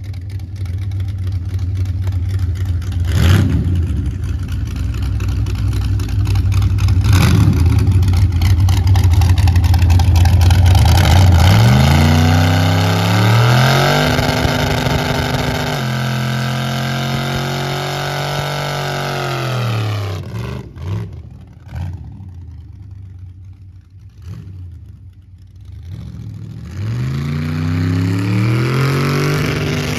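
Chevrolet Silverado 'Cat Eye' pickup with a freshly installed engine doing a burnout, tyres spinning in smoke: the engine runs at high revs with two sharp cracks in the first few seconds, then revs climb, fall away past the middle, and climb again near the end.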